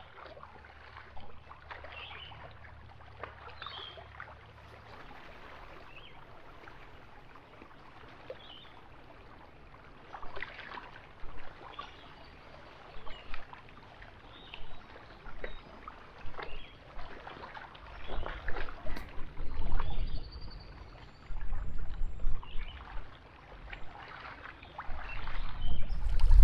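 Small waves lapping and splashing against the rocky shore in short, irregular splashes. In the second half, low gusts of wind buffet the microphone.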